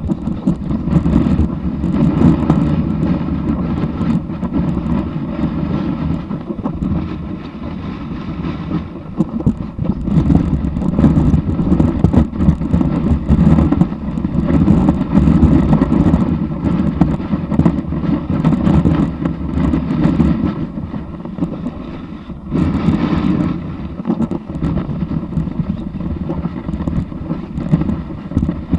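Snowboard sliding fast over packed snow, heard through a camera mounted on the board: a loud steady rumble of the base on the snow with many small knocks from bumps, mixed with wind on the microphone. It eases off briefly about three quarters of the way through.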